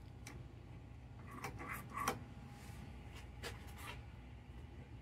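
American Flyer S gauge steam locomotive running on its track with a low steady hum and scattered sharp clicks and crackles, the loudest cluster about two seconds in. The track has a short from a failed rail insulator, which makes the locomotive spark and sputter.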